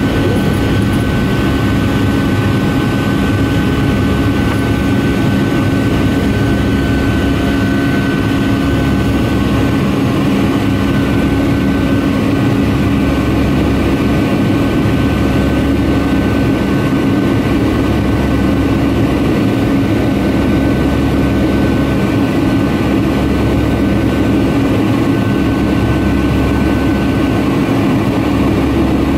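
Steady cabin drone of a Boeing 757-300 climbing after takeoff: jet engines at climb power and rushing air, with a steady high whine and a low hum running through it.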